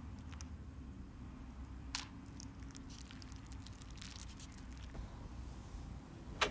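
Metal spoon clinking and scraping in a plastic instant-noodle pot as someone eats, a few short clicks over a low steady room hum. A sharp click near the end.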